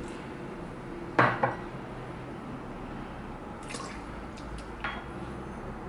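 Water and then milk poured from glass jugs into flour in a stainless steel mixer bowl, with a loud knock of dishware about a second in and two lighter clicks later.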